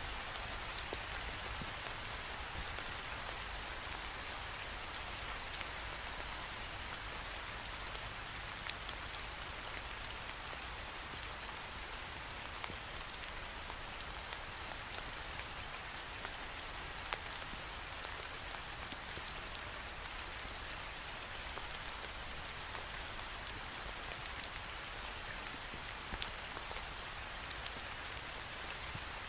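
Steady rain falling, with frequent small ticks of single drops striking a window pane.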